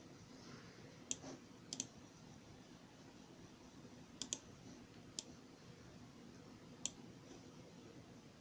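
Quiet room with about six short, sharp clicks at uneven intervals, some in quick pairs.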